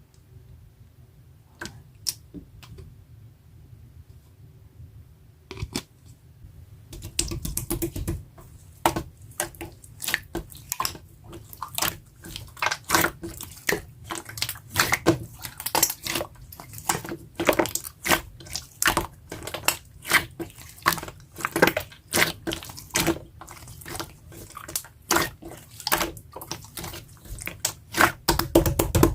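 Hands squishing and poking a jelly-textured clear slime, making wet clicks and pops. A few scattered clicks at first, then rapid, irregular popping from about seven seconds in.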